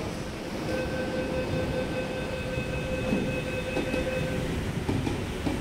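MTR East Rail Line R-train's door-closing warning: one steady tone lasting about three and a half seconds while the doors slide shut, over the low running hum of the stationary train. A few knocks follow near the end.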